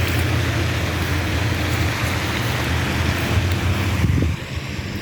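Wind buffeting the microphone outdoors: a low rumble with a hiss over it, which eases off suddenly about four seconds in.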